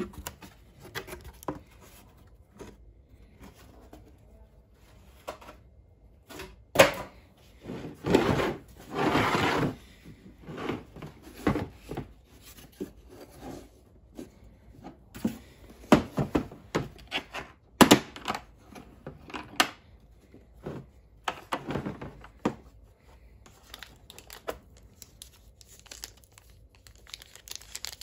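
Unboxing handling noise: a cardboard box sliding and rustling against a hard plastic carry case. Then sharp clicks and knocks as the Milwaukee case's latches and lid are opened and its contents handled, and plastic wrap crinkling near the end.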